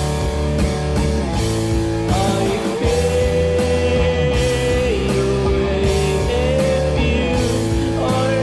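Grunge rock band song playing: electric guitars and bass over a steady drum beat, with a held melodic line.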